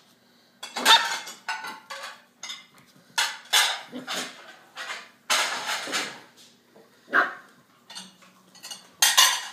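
Eight-week-old puppy playing rough with a towel on a hardwood floor: a run of short scuffling bursts from claws scrabbling and cloth dragging, with small puppy growls among them.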